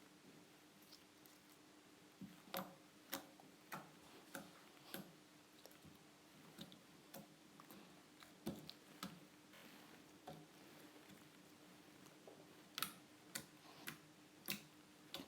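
Sticky slime worked by hand, giving irregular sharp clicks and pops, bunched early on and again near the end with sparser ones between, over a faint steady hum.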